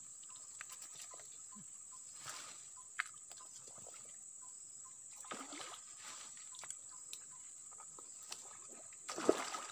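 Sloshing in shallow swamp water as a person wades and shifts his feet, three splashes with the loudest near the end, over a steady high insect drone.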